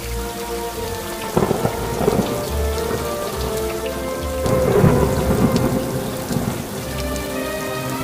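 Thunder in a rainstorm: a clap about a second and a half in, then a longer rumble from about four and a half seconds, over steady rain. Soft background music with held notes plays underneath.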